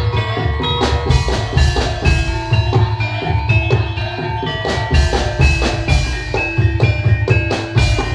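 Javanese gamelan music: struck metallophones ring out a running melody of short, bright notes over steady drum beats.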